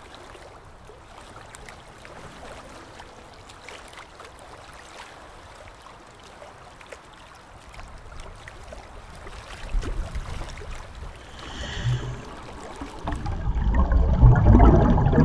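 Underwater recording: a faint hiss with scattered small clicks, then a scuba diver's exhaled air bubbles rushing and gurgling, growing louder over the last few seconds.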